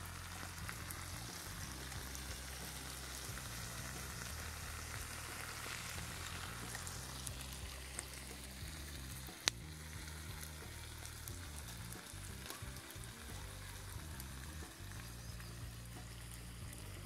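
Diced meat frying in a pan over campfire coals, a steady sizzle, under background music. A single sharp click sounds about nine and a half seconds in.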